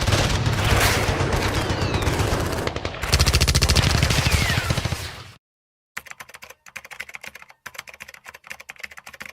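Airsoft guns firing on full auto in long, very rapid strings of shots. After about five seconds it cuts off, and after a brief silence comes a lighter, scattered clicking.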